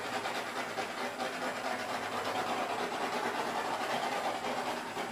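Small handheld torch flame hissing steadily as it is swept over wet poured acrylic paint, popping air bubbles and bringing up cells.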